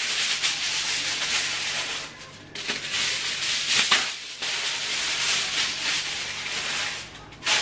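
Aluminium foil crinkling and rustling as a sheet is pulled off the roll and spread over a pot, in two long stretches with a short pause about two seconds in.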